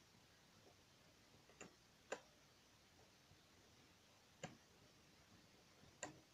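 A few faint, sharp plastic clicks a second or two apart, the loudest about two seconds in, as rubber bands are hooked over the pegs of a plastic band loom; otherwise near silence.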